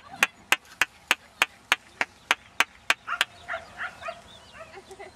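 A quick, even run of sharp hand claps, about three a second, stopping about three seconds in; then a few short high chirping calls.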